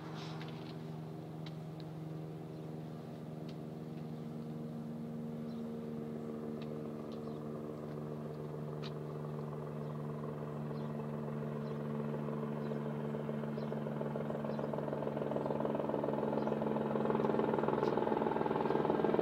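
Approaching helicopter's rotor and engine drone, a steady hum of several tones that grows louder as it nears, most of all in the last few seconds.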